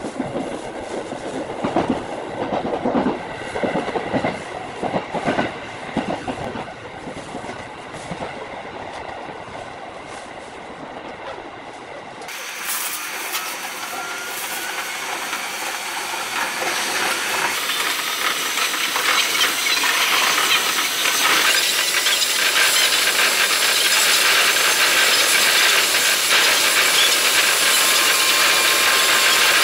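Electric commuter train running on rails, heard from the driving cab and sped up five times: a quick rhythmic clatter of wheels over rail joints, then about twelve seconds in the sound changes abruptly to a steady hiss that grows louder. Near the end a steady whine joins in.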